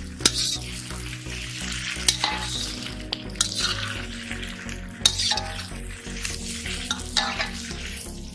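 Chicken sizzling as it fries in a pan, stirred with a metal ladle that clinks and scrapes against the pan every second or so, over background music with a steady beat.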